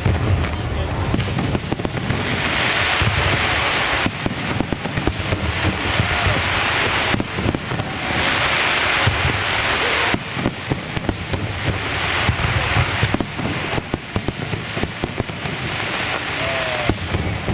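Aerial fireworks display with many shells bursting in quick succession: sharp bangs and deep booms over a continuous rumble, broken by stretches of dense hissing crackle lasting a couple of seconds each.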